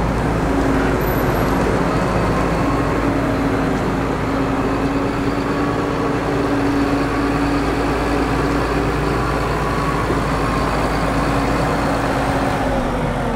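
Giant four-axle trailed feed mixer wagon going past, pulled by a tractor: steady heavy engine and driveline running with a constant whine over a deep rumble. The rumble eases near the end.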